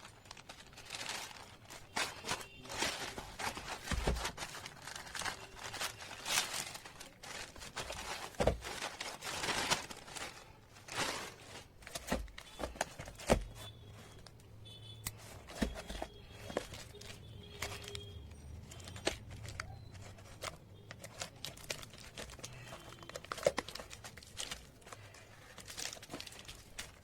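Packaging of a hard disk drive being opened and handled: plastic crinkling and tearing in irregular rustles, with scattered sharp clicks and knocks.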